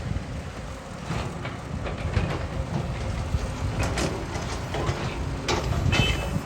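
Excavator working: its diesel engine runs with a steady low rumble, broken by several sharp knocks and clanks as it digs and loads soil.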